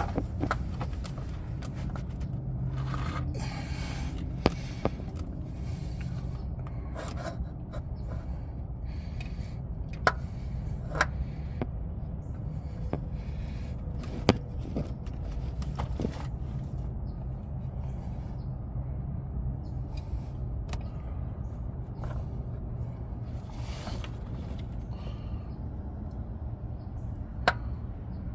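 Oil filter being handled and threaded onto a Duramax diesel's filter mount by hand: scattered metallic clicks and short scrapes over a steady low rumble.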